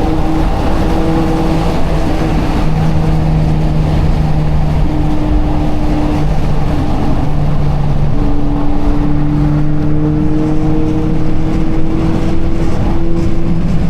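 Turbocharged 1.5-litre four-cylinder of a 2022 Honda Civic Si heard from inside the cabin, a steady engine drone under load. Its pitch slowly rises in the second half, with brief breaks in the tone here and there.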